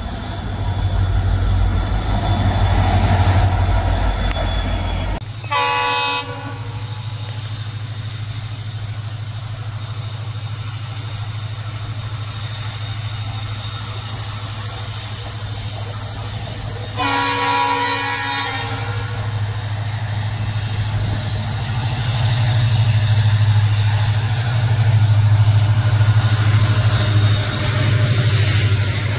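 WDG-4D (EMD GT46MAC) diesel-electric locomotive approaching and passing with its 16-cylinder EMD 710 prime mover running, a steady low engine drone that grows louder as it draws near toward the end. Its multi-tone horn sounds twice: a short blast about six seconds in and a longer one around seventeen seconds.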